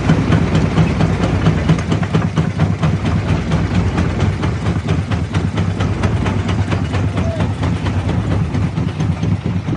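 Quarry jaw crusher running under load: a steady low machine drone with a constant irregular clatter of rock cracking and knocking as it is crushed.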